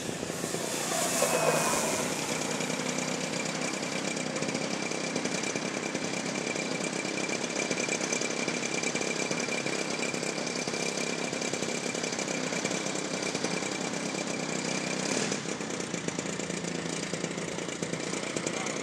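Electric RC model Cub, with an E-flite Power 60 motor and propeller, flying past low: its whine rises to a peak and falls in pitch about a second in. After that a steady mechanical drone with a high, even whine runs until about fifteen seconds in, then eases slightly.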